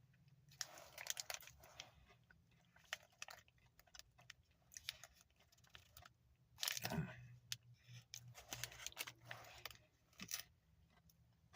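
Faint, irregular crunching and chewing of a Feastables Peanut Butter Crunch chocolate bar, its crunchy pieces crackling between the teeth, with a louder sound about seven seconds in.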